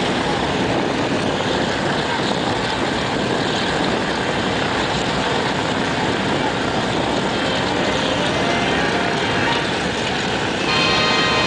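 Boeing B-29 Superfortress "FIFI" running its four Wright R-3350 radial engines on the ground, propellers turning, in a loud steady drone that grows a little louder near the end.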